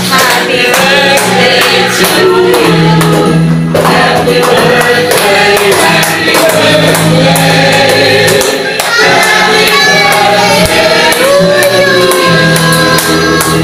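Music: a group of voices singing a melody together over steady instrumental backing with a regular beat.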